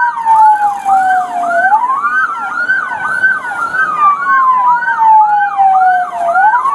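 Two emergency-vehicle sirens sounding together: one in a slow wail, falling in pitch over about three seconds and then climbing back, the other in fast rising-and-falling yelps about twice a second.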